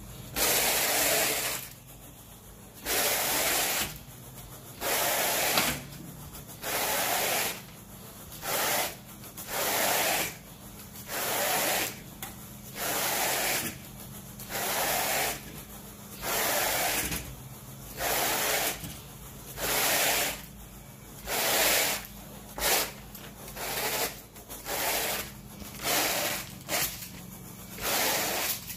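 Carpet rake dragged back and forth through the carpet pile in about twenty strokes, one every second and a half or so, each a scraping swish. The rake is working a pre-applied cleaning agent into the carpet before extraction.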